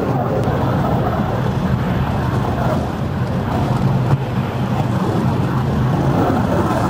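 The 03 Lilliput steam locomotive and its carriages on the 381 mm gauge park railway running steadily, heard from aboard the train: an even running noise of the train on the rails, with some wind on the microphone.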